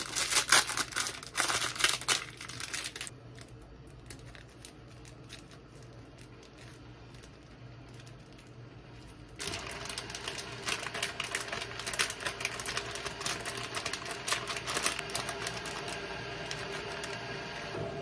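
Food being shaken out of a plastic packet into a glass bowl: quick clicking and crinkling for about three seconds, a quiet stretch, then more clicking and crinkling from about nine seconds in over a steady hum.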